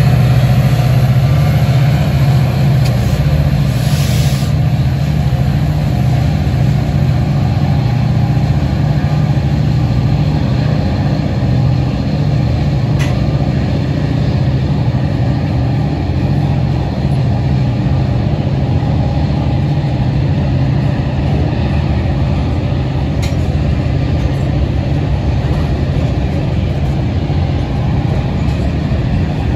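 Diesel-electric freight locomotives running as they pass, followed by the rumble and clatter of covered hopper cars rolling by on the rails. A short hiss comes about four seconds in.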